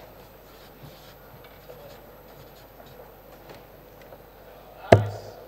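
A steel or soft-tip dart strikes the dartboard once, a sharp thud about five seconds in, with a short low resonance after it. Before it there is only faint room noise with small scattered clicks.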